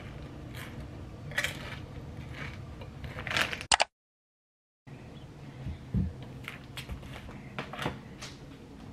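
Rustling of a foil potato chip bag while chips are eaten, broken by short sharp crinkles. It cuts off to about a second of silence near the middle. Then come a few light knocks and rustles as plastic-wrapped food packages are handled on a kitchen counter.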